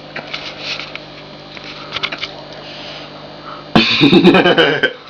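Low room noise with a few faint clicks, then a sudden loud burst of a person's voice near the end.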